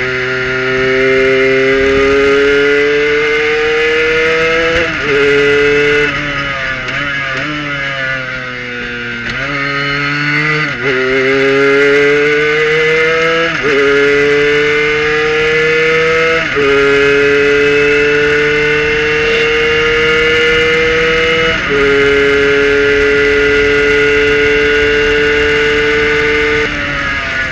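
Onboard sound of a Kohler-powered Prototype 1 race car's engine under hard acceleration. The revs climb and break with quick upshifts. They fall away for a corner about a third of the way in, then pull hard again through three more upshifts, and the note drops near the end as the car slows.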